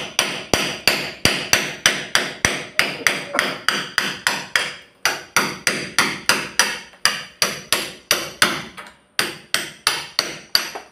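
Steady hammering: a hand hammer struck about three times a second, each blow with a short ring after it. Brief pauses come about five and nine seconds in.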